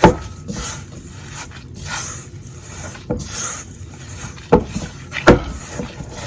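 Minced chicken and seasonings being stirred in a bowl: rubbing and scraping, with sharp knocks against the bowl at the start, about three seconds in, and twice near the end.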